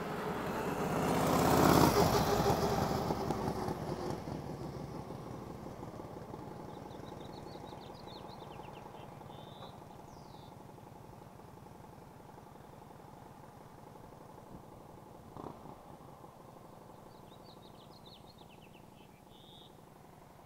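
1938 Harley-Davidson EL Knucklehead's overhead-valve V-twin engine riding past, loudest about two seconds in, then fading steadily as the motorcycle pulls away into the distance.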